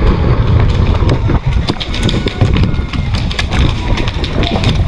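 Running footsteps with gear rattling and knocking, over heavy rumble from the body-worn camera's microphone.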